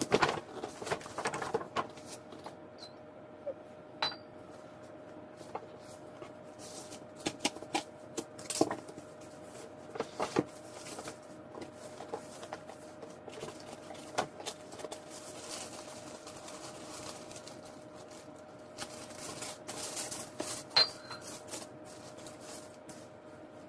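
Rustling and crinkling of paper packaging as a ribbon-tied gift box is taken from a paper shopping bag, opened, and tissue paper is folded back, with scattered sharp taps and light clinks from handling. A faint steady hum runs underneath.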